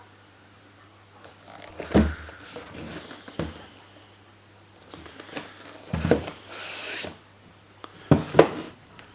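Handling noises from a boxed wrench set and its packaging: a few separate knocks and thumps, with a short rustle about two-thirds of the way through.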